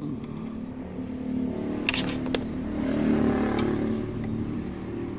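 Honda Stylo scooter's single-cylinder engine running and revved up, then easing back, with two sharp clicks about two seconds in. The metallic rattle from the rear has stopped now that rubber pads are fitted.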